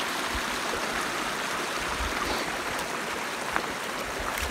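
Shallow stream running over stones with a steady rushing, trickling sound.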